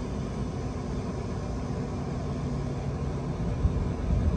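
A steady low rumble with a faint hum, and a couple of short knocks near the end.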